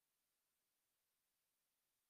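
Near silence: a digital recording with no audible sound.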